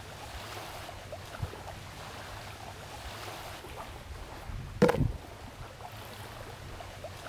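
Steady outdoor noise of wind and lapping water, with faint scattered ticks, and one short loud thump about five seconds in.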